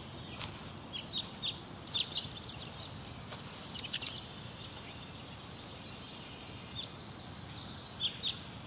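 Small birds chirping in short, scattered calls over a steady outdoor background hiss.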